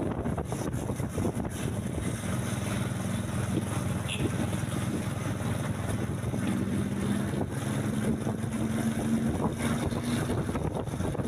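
A large bus's diesel engine running close by, a low steady rumble with wind on the microphone. Low steady tones join in a couple of seconds in and step between two pitches in the second half.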